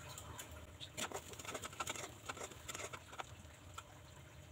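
Sliced onions and whole spices frying in soybean oil in a kadai: faint, irregular crackling and spitting of the hot oil.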